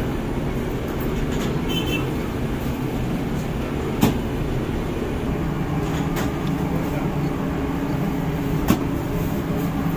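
Steady rumble and hum of semi-automatic flatbread bakery machinery running, with two sharp knocks about four and about nine seconds in.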